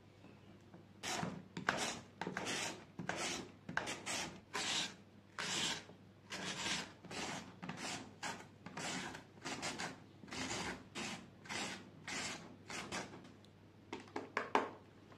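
A carrot being shredded on a red hand-held julienne slicer over a wooden cutting board: the blade scrapes along the carrot in repeated strokes, a little under two a second. A few quick sharp knocks near the end.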